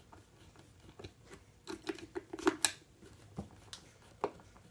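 Screwdriver turning the screw that holds a solder spool on its hub: a quick run of small clicks and scrapes about halfway through, then two single clicks near the end.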